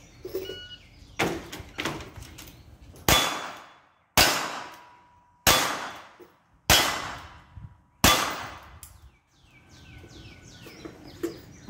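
Five loud gunshots about a second apart, each trailing off slowly, with steel targets ringing after the hits; two quieter sharp knocks come just before them.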